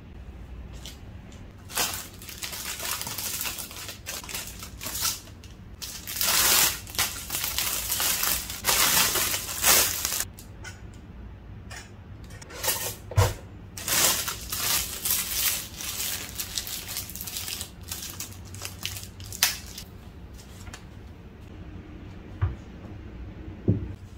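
Household handling noises: a run of rustling, crinkling and scraping sounds with a few sharp clicks, in two busy stretches separated by a short lull near the middle.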